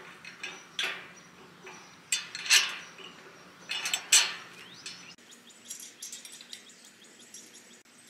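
Powder-coated steel hitch bar clanking against the cargo carrier's square steel arm as it is slid in and worked to line up the bolt holes: about five sharp metallic clanks with a short ring in the first half, then lighter taps and scraping.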